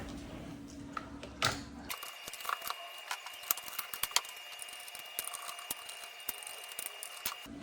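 Light, irregular clicks and taps of tools and small parts handled while a servo drive is taken apart. A faint steady high tone runs under them from about two seconds in, and a low hum cuts off at that point.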